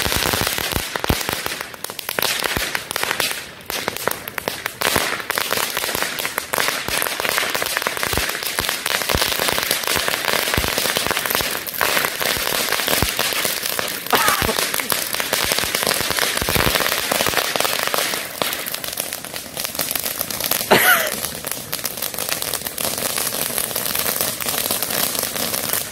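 Ground fireworks burning on asphalt: a dense, unbroken crackle of firecracker pops over the steady hiss of a spark-spraying fountain. A short pitched gliding sound comes through about 21 seconds in.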